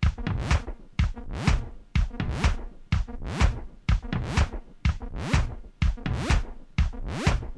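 Background music with a steady beat of about two strokes a second, with rising sweeps in pitch in the second half.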